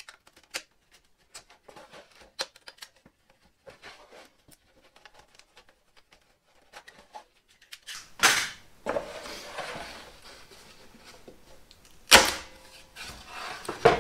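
A small blade tapped and scraped into the glued seam between two plywood panels makes a run of light clicks. Then come two loud cracks, about 8 and 12 seconds in, each followed by a rasping tail as the glue joint is forced apart.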